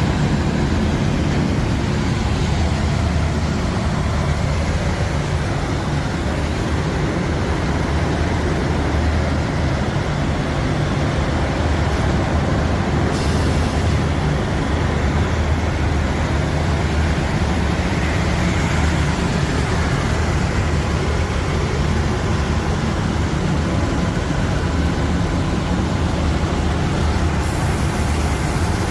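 Machinery running steadily: a constant low hum under an even, unbroken noise.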